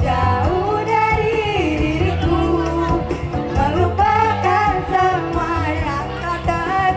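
A female voice singing a pop song over backing music with a steady bass.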